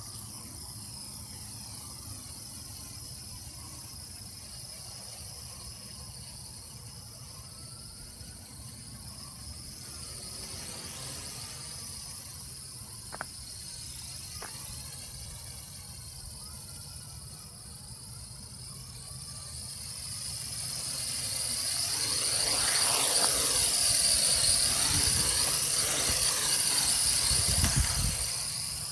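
Traxxas Alias quadcopter's motors and propellers whining in flight, the pitch gliding up and down as it manoeuvres. The whine grows much louder from about two-thirds of the way through as the drone flies close by, then falls away at the very end. Two small clicks come a little before the middle.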